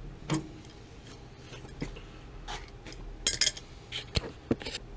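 Hand tools clinking and scraping against the metal fittings at the base of a gas water heater: a scatter of sharp clicks and knocks, loudest about three seconds in.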